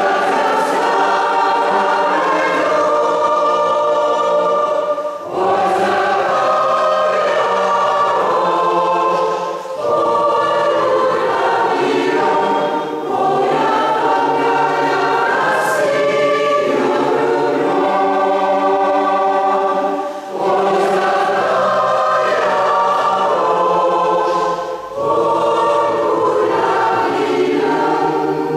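A choir singing sustained phrases a few seconds long, with short breaths between them.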